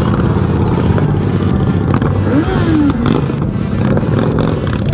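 Yamaha XJ6's inline-four engine running steadily at low road speed, with a short gliding tone about two and a half seconds in.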